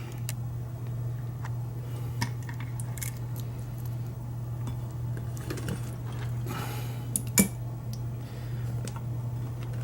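Small metal lock parts and tools clicking and clinking as a Kwikset SmartKey deadbolt is being taken apart, with one sharp click about seven seconds in, over a steady low hum.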